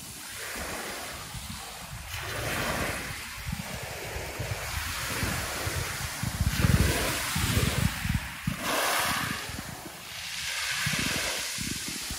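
Small waves breaking and washing up on the shore in repeated hissing surges, with wind buffeting the microphone, the gusts strongest about halfway through.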